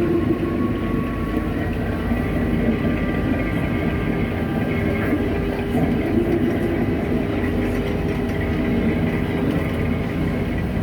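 A tour boat's motor running steadily under way: a constant low drone with a few faint steady tones above it.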